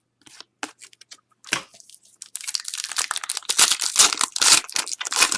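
A few light clicks of trading cards being handled, then, about two seconds in, a dense crinkling and tearing as a foil trading-card pack wrapper is ripped open.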